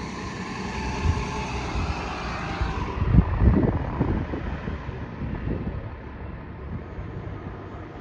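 A city transit bus passes close by through slushy snow, its engine and tyre noise dying away about three seconds in. Gusts of wind then buffet the microphone, with quieter traffic noise after.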